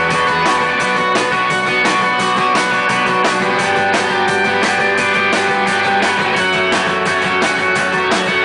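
Rock band playing live: electric guitars over bass and drums keeping a steady, fast beat.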